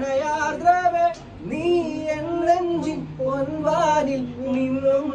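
A song: a voice singing long, wavering held notes, with a second, lower note held for about a second near the end.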